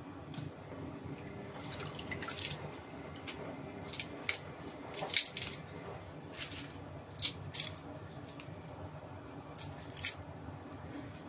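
Raw shrimp being peeled by hand over a bowl of water: short, irregular wet crackles and squelches as shells and heads are pulled off, with water dripping from the hands and shrimp.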